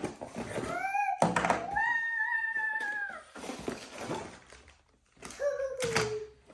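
High-pitched, drawn-out wordless vocal sounds: a short rising one about a second in, a long held one just after, and a falling one near the end, with brief rustling between.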